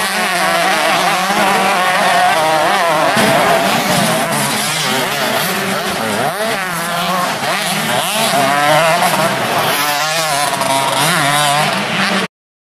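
Several 125cc two-stroke motocross bikes racing, engines revving hard with the pitch rising and falling repeatedly through the gears. The sound cuts off abruptly near the end.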